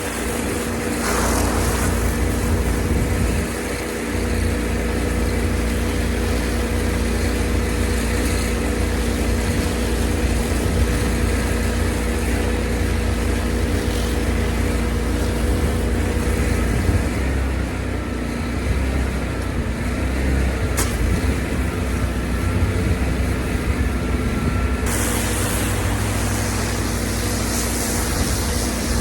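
An engine running steadily with a strong deep rumble; a broader hiss joins about 25 seconds in.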